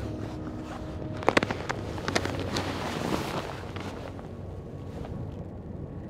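Steady wind noise on the microphone. A cluster of sharp crunches and clicks comes about a second in, more follow around two seconds, and a swell of hiss comes around three seconds.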